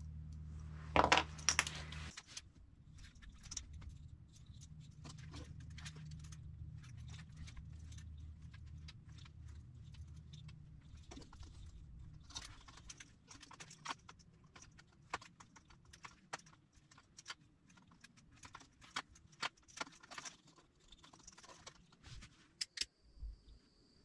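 Small electrical parts being handled by hand: light, scattered clicks and rattles of wires, spade connectors and a plastic rocker switch, with a louder rattle about a second in and a sharp click near the end. A low steady hum runs underneath for the first half and then stops.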